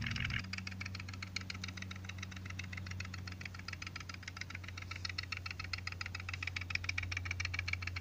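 Wooden woodpecker pole toy pecking its way down a wooden dowel: rapid, even clicking, about ten taps a second, as the bird bounces on its coil spring and its sleeve catches and slips on the pole. A steady low hum runs underneath.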